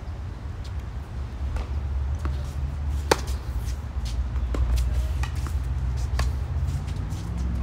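Tennis ball struck back and forth by rackets in a doubles rally: a string of sharp pocks and bounces, the loudest about three seconds in, over a steady low rumble.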